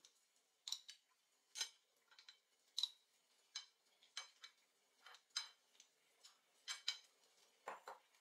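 Light clicks of clam shells and metal kitchen tongs tapping against a ceramic plate and each other as cooked clams are set down one at a time, irregular at roughly one or two clicks a second.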